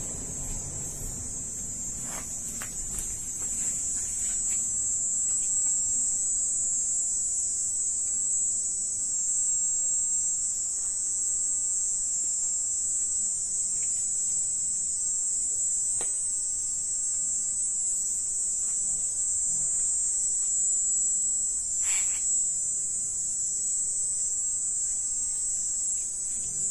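Steady high-pitched drone of night insects, with a couple of faint taps partway through.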